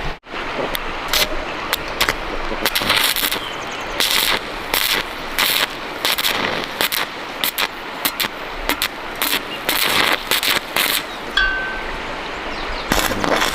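Electric arc welding on an iron frame: a dense, irregular crackling and sputtering with short breaks between runs.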